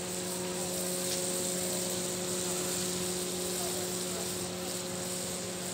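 Steady machine hum, a low drone with a couple of higher overtones, over a constant hiss.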